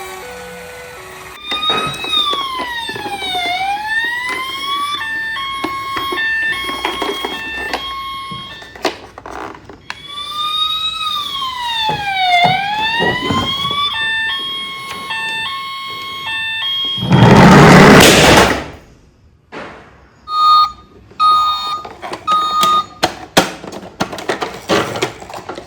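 Toy emergency vehicles' electronic sirens: a wail that sweeps down and back up, then a stepping two-tone pattern, heard twice over. About seventeen seconds in, a loud burst of noise lasting over a second, followed by short beeps and clicks.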